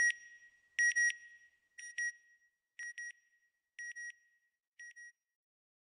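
Tornado detector's electronic alarm sounding a high-pitched double beep about once a second. There are six double beeps, each fainter than the last.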